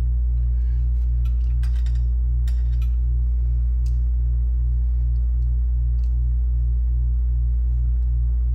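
A steady low electrical hum with a slight regular pulsing, over a few light metallic clicks and clinks from a screwdriver and small screws being worked.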